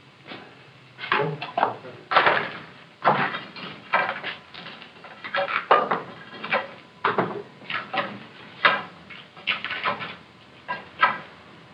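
Irregular clattering and knocking of metal foundry equipment, two or three sharp clanks a second, some ringing briefly.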